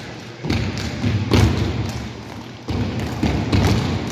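Step team stomping feet and clapping hands in a rhythm, a series of sharp thuds and claps in uneven groups.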